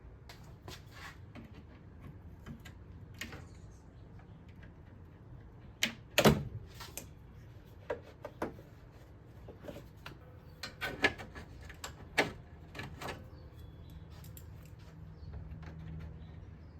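Hand tools clicking and knocking against metal parts in a car's engine bay during teardown work, scattered irregular knocks with the loudest about six seconds in and a cluster later on, over a faint steady low hum.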